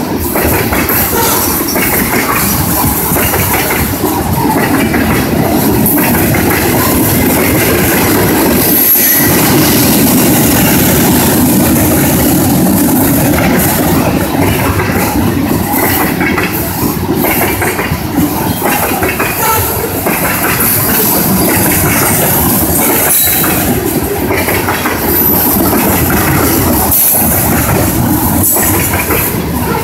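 Loaded CSX coal hopper cars rolling past: a loud, steady rumble of steel wheels on rail, with the clickety-clack of wheels over the rail joints.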